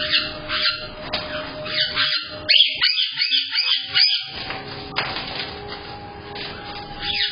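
Parrots calling from their cages: a string of sharp, high chirping calls, with a quick run of looping whistled calls about two and a half seconds in, the loudest part. A faint steady tone hums underneath.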